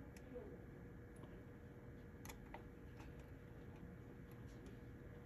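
Near silence with a few faint, scattered clicks from a computer keyboard and mouse being used.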